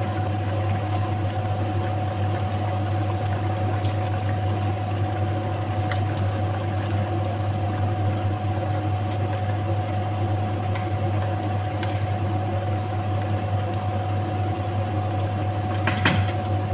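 Steady low motor hum with a thin steady whine over it. A wooden spoon stirs rice into a pot of stew, with faint scrapes and a couple of knocks on the pot near the end.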